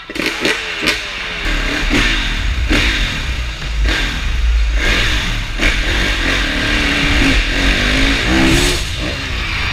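Four-stroke Kawasaki dirt bike engine revving and accelerating, its pitch rising and falling with the throttle. Several sharp knocks break through.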